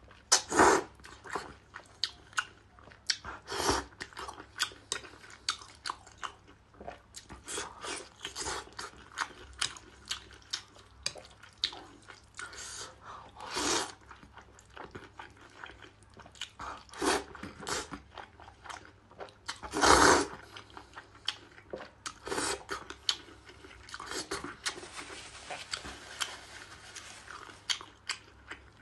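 Close-miked mouth sounds of someone eating saucy noodles and crayfish: a steady run of wet chewing and smacking clicks, with a few longer, louder noodle slurps.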